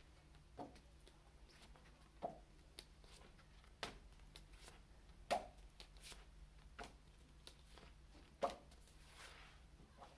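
Large paper flashcards being handled and flipped one after another: short soft slaps and paper rustles every second or so, over a faint steady low hum.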